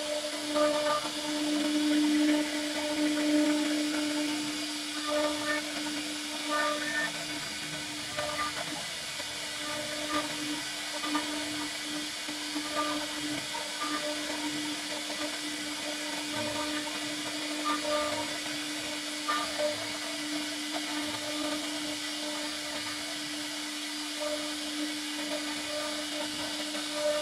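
CNC router spindle running with a steady hum and hiss as its carving bit routes a pattern into khat wood, with scattered brief crackles from the cut. It is a little louder over the first few seconds, then runs evenly.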